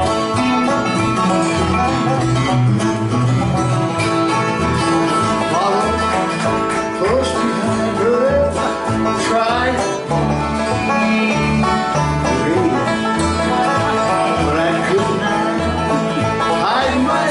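Bluegrass band playing live: banjo and guitar picking over a regular low bass pulse, with sliding notes running through the passage.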